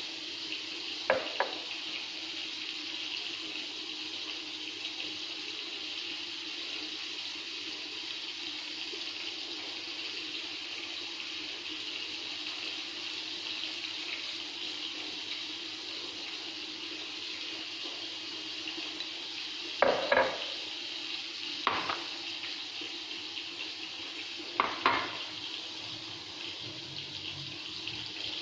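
A steady hiss like a running kitchen tap, with a low hum under it. Now and then a plate or utensil gives a short clink or knock: once near the start and three times in the last third.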